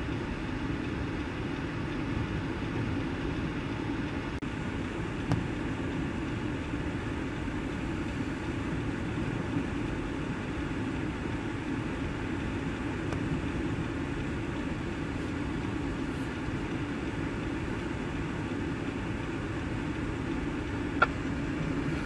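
Steady low rumble of vehicle engines idling, with a couple of faint knocks.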